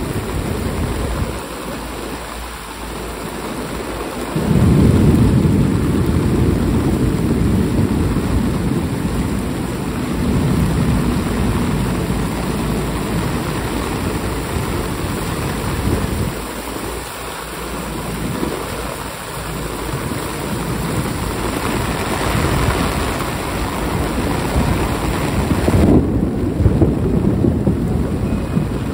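Heavy rain of a flood-causing downpour pouring steadily, with a deep rumble underneath that swells about four and a half seconds in.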